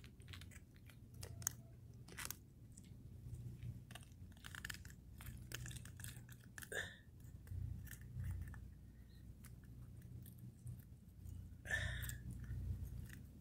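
Small clicks and crunchy scrapes of metal pliers working a hook out of a caught fish's mouth, with a few louder scratches about two seconds in, near the middle and near the end, over a low steady rumble.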